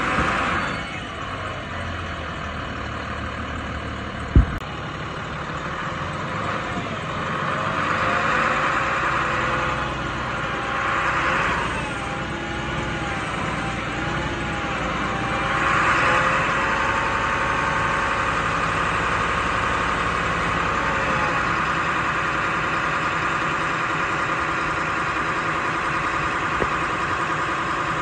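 Diesel engine of an International WorkStar 7300 digger derrick truck running while the hydraulic boom is raised and extended; the engine note wavers in pitch under the hydraulic load. A hiss swells up several times and then holds steady from about sixteen seconds in. One sharp knock comes about four seconds in.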